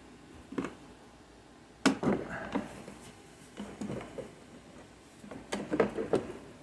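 Hard plastic clicks and knocks as a black plastic cover over the battery is unclipped and lifted out by hand. The loudest snap comes about two seconds in, and there is a quick cluster of knocks near the end.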